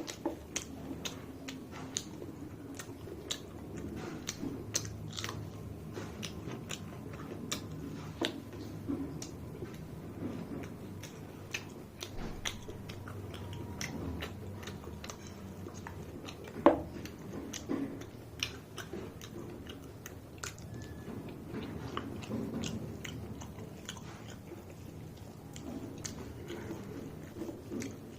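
A person chewing mouthfuls of rice and curry, with many short wet clicks and smacks of the mouth and one louder crunch about two thirds of the way in.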